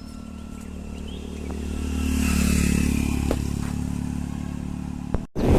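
A motor vehicle's engine running with a steady low hum. It grows louder about two seconds in and eases off again, with a few light clicks. The sound cuts off abruptly just before the end.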